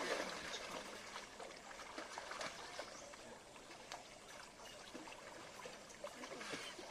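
Water trickling and lapping, with many small splashy ticks.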